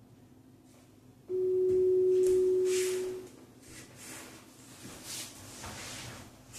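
A single steady electronic beep held for about two seconds, starting just over a second in: a workout interval timer's tone. Softer movement noises follow.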